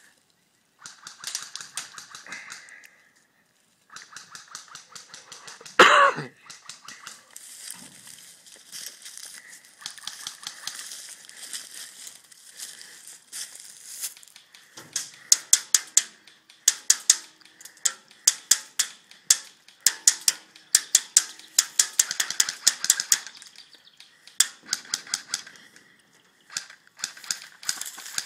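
Airsoft guns firing on full auto, rapid clicking shots in repeated bursts, with one louder, longer sound about six seconds in.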